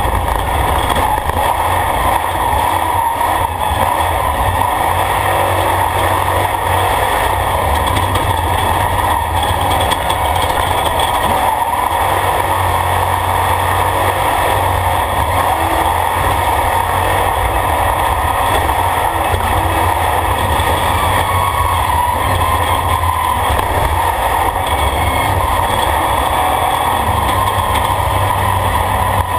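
Off-road race vehicle's engine running steadily while driving on a dirt road, heard loud from inside the roll-caged cockpit.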